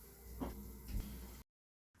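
Two soft knocks of album packaging being handled over a low, steady hum, then the sound cuts out to dead silence about one and a half seconds in, at an edit.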